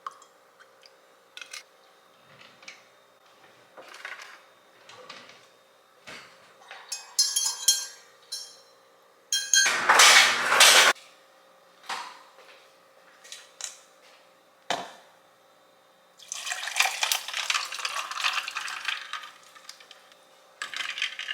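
Kitchen clatter of cups and dishes being handled and set down, with scattered clinks and knocks. There is a loud rush of noise lasting about a second and a half partway through, and several seconds of liquid pouring near the end.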